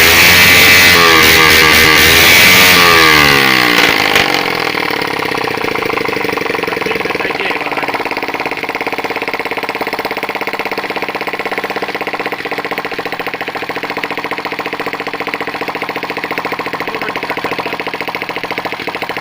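Small moped engine, freshly repaired, revving high with pitch rising and falling for about four seconds, then dropping back to a steady idle that keeps running.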